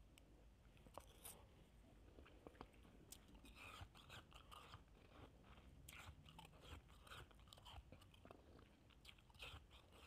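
Faint crunching of a mouthful of shaved ice being chewed, a scatter of small crackles throughout.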